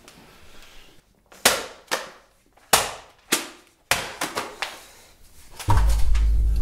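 A run of loud, sharp bangs: five heavy ones spaced about half a second apart, then a quicker patter of lighter knocks, then a deep low boom that comes in near the end.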